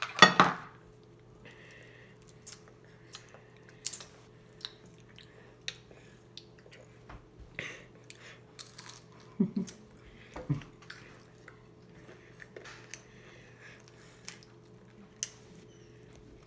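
Tortilla chips crunching as they are bitten and chewed, in scattered short crunches over a steady low hum. A louder short burst of sound comes right at the start.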